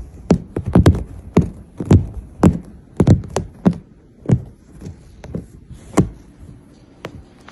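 A run of irregular sharp taps and thumps, two or three a second, thinning out after about four seconds: a kitten clawing and scrambling against a fabric sofa.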